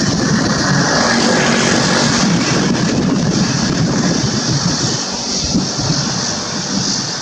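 Aircraft engine noise with wind buffeting the microphone, loud and steady throughout.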